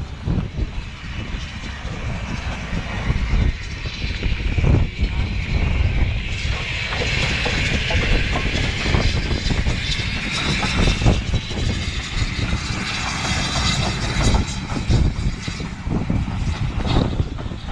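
BR Standard Class 9F steam locomotive 92214, a two-cylinder engine, going past with a train of coaches rumbling along the track behind it. Wind buffets the microphone.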